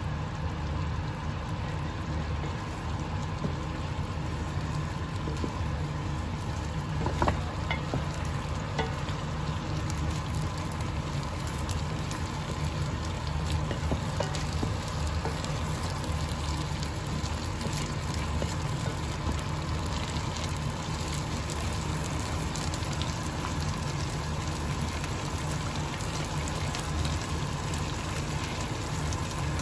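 Sweet and sour sauce bubbling and sizzling in a nonstick wok with pork and bell pepper pieces, with a steady low hum underneath. A wooden spatula stirs the food, with a few sharp clicks against the pan, the loudest about seven seconds in.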